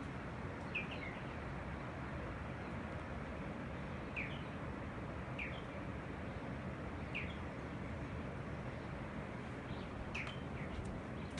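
A bird giving short, high, falling calls, one every one to three seconds, over steady background hiss.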